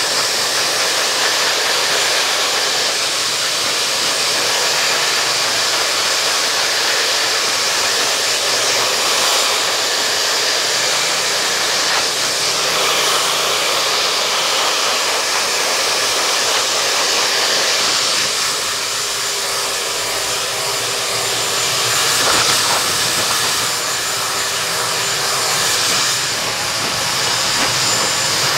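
Handheld hair dryer blowing hair, a steady rush of air with small dips in level as it is moved around the head.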